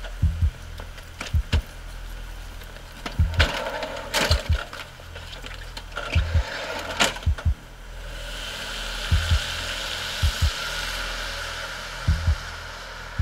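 Deep, heartbeat-like double thumps in a film score, about one pair every second or so, under a tense background. A hissing rush swells in about eight seconds in and fades near the end.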